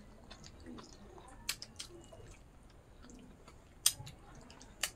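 Quiet eating sounds: chewing, with four or so sharp clicks and smacks as rice and pork are mixed by hand on a wooden plate.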